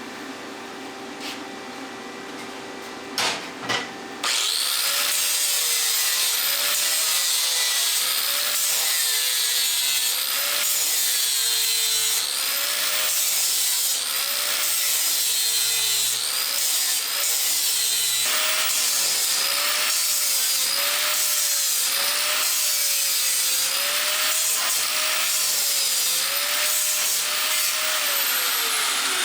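Electric grinder grinding stainless steel, starting about four seconds in after a couple of knocks; its motor pitch dips and recovers over and over as the disc is pressed into the metal. Near the end the grinder is switched off and spins down with a falling whine.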